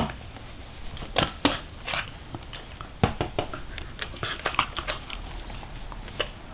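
A corgi close by, mouthing its ball and shifting on a wooden floor: irregular small clicks and taps, with a dense run of them about three to five seconds in.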